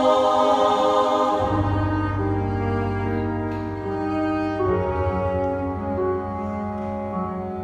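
A choir holds a chord that fades out about a second and a half in. A cello then plays long, low sustained notes with soft held tones above it.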